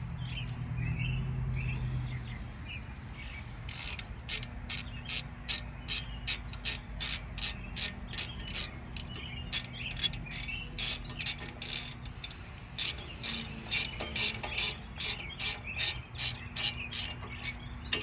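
Hand ratchet clicking steadily, about three clicks a second, beginning a few seconds in, as a screw is run in on the newly fitted brake rotor.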